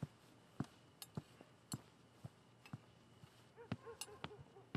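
Faint, irregular clinks and taps of cutlery on plates as a family eats quietly at the dinner table, about one every half second.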